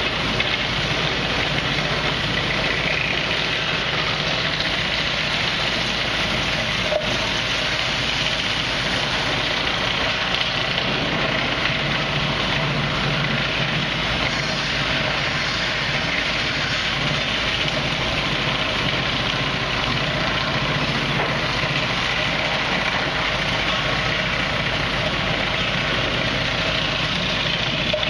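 Steady, loud din of sawmill machinery running together: the Wood-Mizer band sawmill and a board edger, a low steady hum under dense mechanical noise. One sharp knock about seven seconds in.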